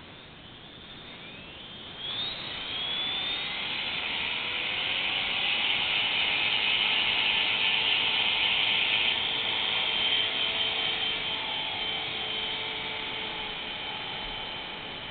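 CopterX 450 Pro electric RC helicopter spooling up: the whine of its brushless motor and main rotor rises in pitch about two seconds in, then holds as a steady high whine. Near the end it lifts off and the sound eases as it climbs away.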